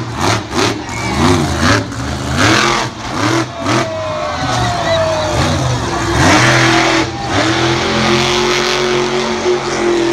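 Monster truck engine revving up and down repeatedly, then holding a steady high rev for the last couple of seconds, with a rush of noise about six seconds in.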